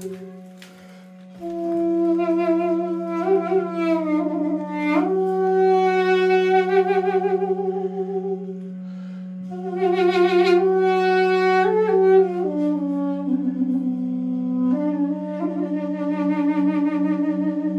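Armenian duduk playing a slow, ornamented melody with slides between notes, in phrases with short breaths between them, stepping down in pitch in the second half. A steady low drone is held underneath.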